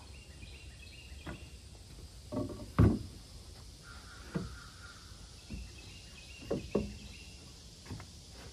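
2x6 lumber frames knocking against each other and the wooden deck as one frame is lifted and set in place: a handful of wooden knocks, the loudest about three seconds in.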